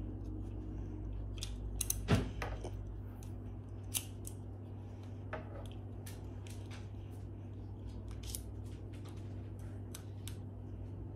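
Scattered small plastic clicks and taps as the parts of a Beyblade spinning top are handled and fitted together, with a louder click about two seconds in, over a steady low hum.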